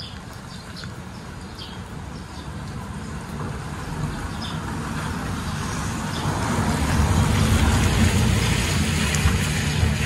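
A motor vehicle passing by, out of sight: its engine and tyre noise grow steadily louder to a peak about seven to nine seconds in, then begin to fade. A few faint bird chirps sound in the first few seconds.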